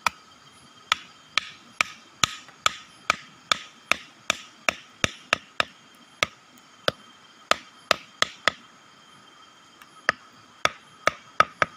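A sharpened wooden stake being hammered into soft ground: a run of sharp knocks, two to three a second, with a short pause about two-thirds of the way through before the strikes resume.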